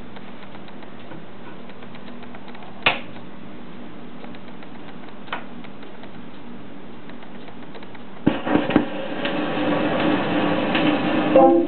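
Califone portable phonograph turning a 10-inch 78 rpm Durium record, with a steady low hum and hiss, a sharp click about three seconds in and a fainter one later. About eight seconds in the stylus is set down on the record with a few thumps, then loud crackle and hiss of the record's surface noise build up, and music is just starting at the very end.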